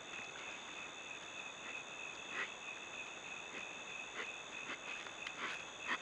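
Night insect chorus trilling steadily at three high pitches, with faint scattered scuffs and ticks of collared peccaries stepping over dry, stony ground.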